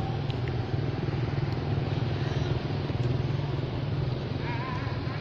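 An engine running steadily with a low, fluttering hum. A short, wavering high-pitched call or squeal comes in near the end.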